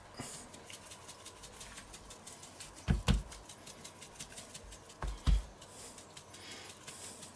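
Spice shaker shaken over raw pork, seasoning it: a light, rapid ticking of the rub, with two pairs of dull knocks about three and five seconds in.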